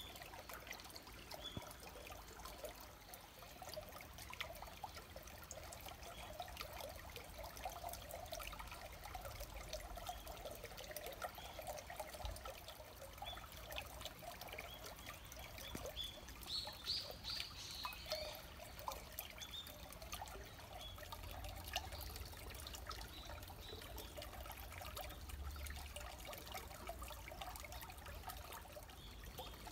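Shallow stream trickling and babbling over rocks: a faint, steady water sound, with one brief higher-pitched sound about halfway through.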